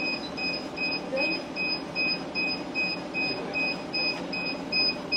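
A city bus's electronic beeper sounds a steady repeating beep, about two and a half beeps a second, over low cabin noise and faint voices.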